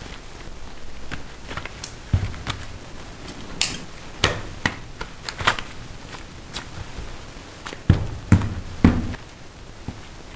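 Irregular taps, clicks and knocks of handmade-candy work at a bench, with a few heavier thumps, three close together near the end.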